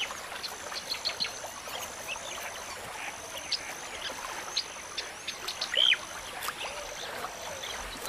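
Wild birds chirping and calling at intervals over a steady outdoor hiss, with one louder whistled call falling in pitch about six seconds in.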